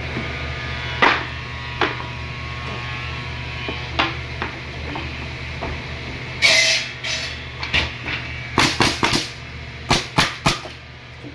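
Pneumatic nail gun firing nails into wooden pallet boards: sharp single shots spaced a few seconds apart, then a quick run of several shots near the end, over a steady low machine hum.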